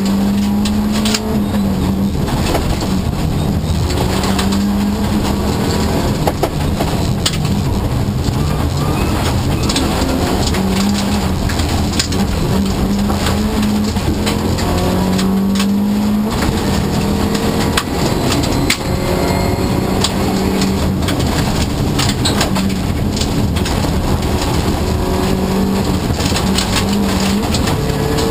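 Subaru Impreza Group A rally car's turbocharged flat-four engine driven hard on gravel, heard from inside the cabin. The engine note climbs and breaks off again and again through the gear changes, with stones clicking and rattling against the car.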